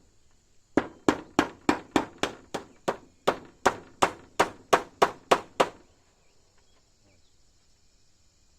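A quick run of about sixteen hard blows from a hand tool striking, roughly three a second, each with a short ring, stopping abruptly a little before halfway. After that only a faint, steady high hiss remains.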